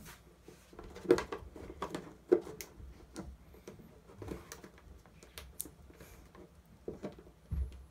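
Scattered light clicks and knocks of hand tools and a small part being handled while the part is cut to length. Two louder knocks come about one and two seconds in.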